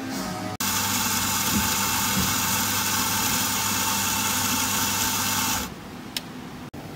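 Electric espresso grinder motor running steadily as it grinds coffee into a portafilter. It starts suddenly about half a second in and stops after about five seconds, followed by a single short click.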